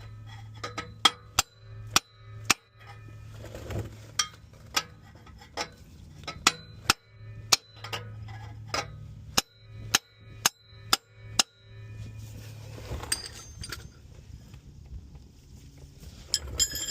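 Hammer blows on metal, about twenty sharp, irregular strikes at one or two a second, as a stuck oxygen sensor is worked on. The strikes stop about twelve seconds in, and a few metallic tool clinks follow near the end, over a steady low hum.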